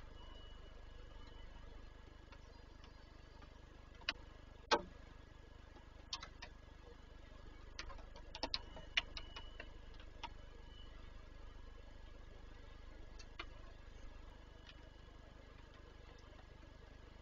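Scattered sharp taps and ticks in a wooden nest box, about a dozen at irregular intervals bunched in the middle, the loudest about five seconds in, over a low steady hum.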